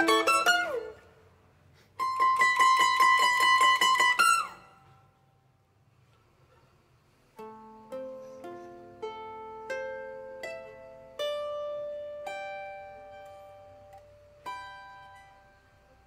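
Colombian bandolas playing the closing bars of a bambuco. Rapid tremolo plucking and a downward slide about four seconds in are followed by a pause of about three seconds. Then come slow single plucked notes, each left to ring, the last struck a little before the end.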